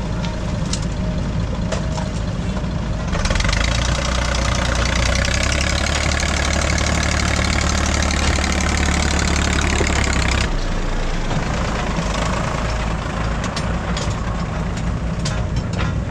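Diesel engines of a JCB 3DX backhoe loader and a farm tractor running. From about three seconds in to about ten seconds one engine works harder, louder and heavier, then settles back to a steady run, with a few sharp knocks near the end.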